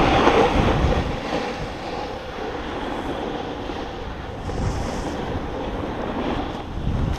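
Snowboard sliding over groomed snow, a steady rushing scrape mixed with low wind rumble on the body-mounted camera's microphone, louder for about the first second.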